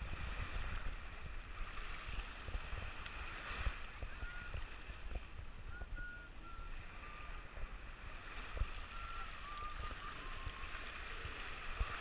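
Shallow sea water lapping and sloshing around a camera held at the waterline, with low wind rumble and buffeting on the microphone. A few faint, short, high tones come and go in the middle.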